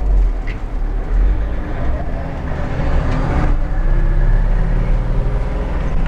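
A 2000 International Blue Bird school bus's engine pulling steadily under way, heard from inside the driver's cab. A little past halfway the engine sound breaks and picks up again as a gear is changed on the six-speed Spicer manual.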